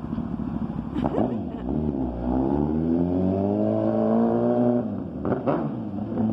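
2008 Kawasaki ZX-10R's inline-four sportbike engine through a full M4 exhaust, accelerating hard. A quick rev about a second in, then a long climb in pitch for about three seconds, after which the throttle closes and another short rev follows.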